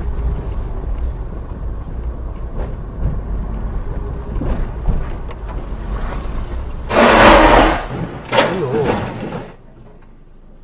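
Low, steady rumble of a car driving on a rough lane. About seven seconds in comes a loud, harsh burst lasting under a second, and a shorter one with a wavering tone follows, as a three-wheeled cargo tricycle comes up close in front. The sound then drops off sharply.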